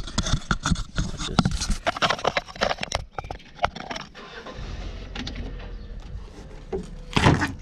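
Hands working a rubber steering rack boot off a car's rack and inner tie rod: a quick run of rubbing, scraping clicks, then a quieter stretch and one louder sudden noise near the end.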